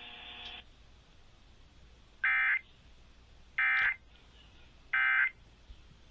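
Emergency Alert System end-of-message signal: three short, identical bursts of screechy SAME digital data tones, about a second and a half apart. They mark the end of the alert message.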